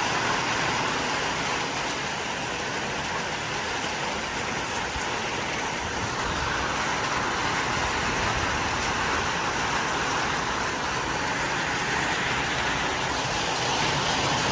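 Heavy thunderstorm rain pouring down in strong wind: a steady, dense hiss without a break.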